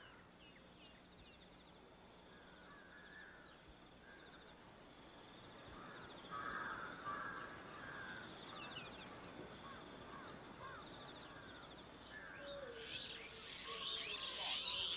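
Birds calling and chirping, crows cawing among them, with a thin high trill running behind. Faint at first, growing louder toward the end.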